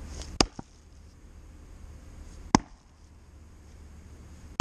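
An axe chopping into a wood round on a chopping block, with sharp single chops about half a second in, about two and a half seconds in, and again right at the end. A lighter knock follows just after the first chop.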